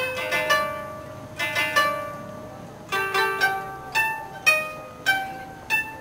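Solo koto, the Japanese 13-string zither, plucked: single notes start sharply and ring out in a slow phrase with short pauses between groups of notes.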